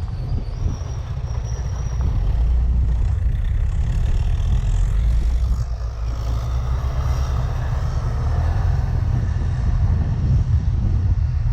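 Yamaha Mio Gravis scooter running on the move, mixed with a deep, steady wind rumble on the microphone; it gets slightly louder about two seconds in.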